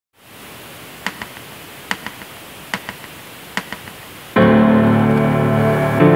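Instrumental music starting: four pairs of soft clicks at an even beat over a low hiss, then about four seconds in loud held chords begin and change once near the end.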